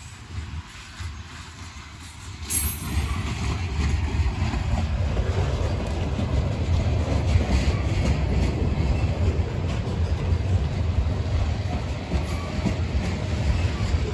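Freight train of covered hopper cars rolling past on jointed track: a steady rumble and clatter of steel wheels on rail, louder from about two and a half seconds in.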